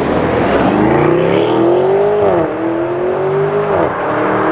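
A sports car accelerating hard away, its engine pitch climbing and dropping twice as it shifts up, about two seconds in and again near the end.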